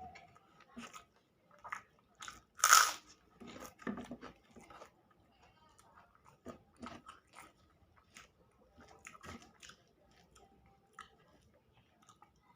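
A person eating close to the microphone: irregular chewing, biting and mouth smacks, with one louder crunch-like burst about three seconds in.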